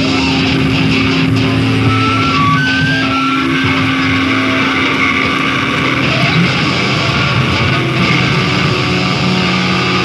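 Loud, distorted electric-guitar feedback and amplifier noise from a rock band's stage rig, with a held drone for the first few seconds and short high squeals around two to three seconds in.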